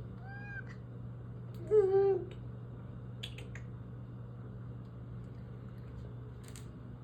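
Domestic cat meowing to be let outside: a short, higher meow right at the start, then a louder, lower meow about two seconds in.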